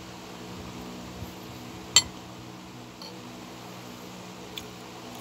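Metal spoon and fork clinking against a bowl while eating: a few short clinks, the sharpest about two seconds in, over a steady low hum.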